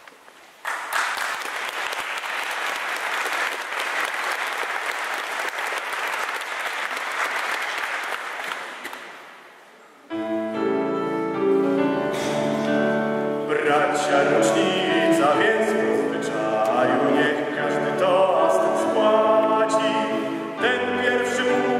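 Audience applauding for about nine seconds, dying away. About ten seconds in, instrumental music starts with held chords.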